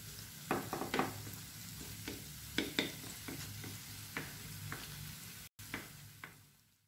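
Wooden spatula stirring and scraping grated cauliflower zaalouk in a nonstick frying pan, with irregular scrapes and taps against the pan over a quiet sizzle. The zaalouk is cooked through and being given a last stir.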